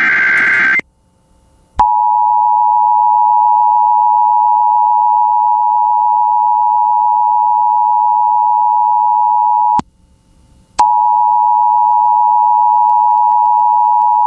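Emergency Alert System broadcast: the tail of a SAME digital header burst, a harsh warbling data screech, cuts off within the first second. About two seconds in, the two-tone EAS attention signal (853 Hz and 960 Hz sine tones sounding together) comes on steadily for about eight seconds, breaks off for a second, then starts again.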